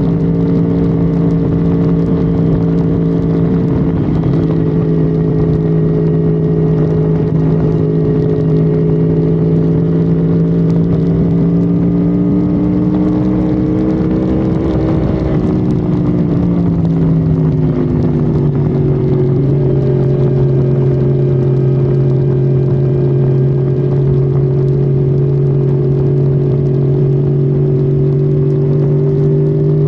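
Honda Civic FD's engine droning steadily under way at highway speed, heard from inside the car. Its pitch climbs slowly, falls over a couple of seconds about halfway through, then holds steady at a lower pitch.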